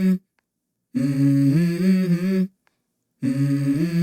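Background music: a hummed vocal phrase repeated with short pauses between. It is the intro of a song.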